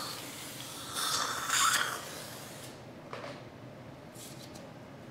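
Dental suction tip hissing and slurping saliva in the mouth, loudest about a second and a half in, then cutting off. A short knock and a few faint ticks follow.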